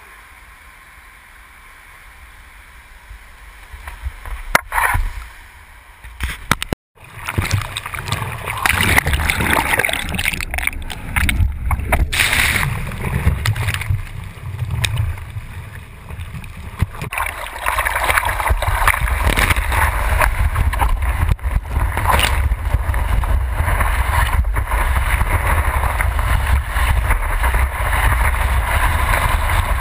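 Quiet wash of surf at first, then, after a short break about 7 s in, a loud rush of churning whitewater and wind buffeting a surfboard-mounted action camera as it rides a wave, with a heavy low rumble.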